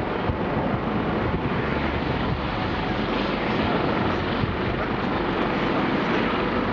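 AgustaWestland AW109 twin-turbine helicopter running: steady turbine and rotor noise.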